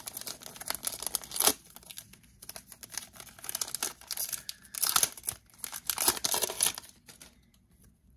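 A Topps Chrome baseball card pack's wrapper being torn open and crinkled by hand, in several irregular bursts of tearing and crinkling, quieting near the end.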